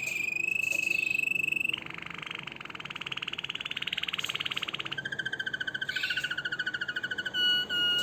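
Harz Roller canary singing its rolling song. It holds a steady whistled note for nearly two seconds, switches to a very fast rolling trill, then a lower, steadier pulsing note, and breaks into short notes near the end.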